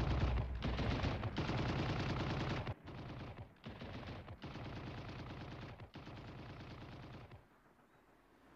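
Rapid machine-gun fire with a low rumble under it, loud for the first three seconds, then quieter, dying away about seven seconds in.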